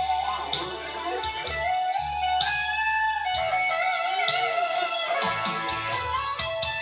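Live amplified music: an electric guitar plays a melody with bending, sliding notes over low bass notes and a steady beat.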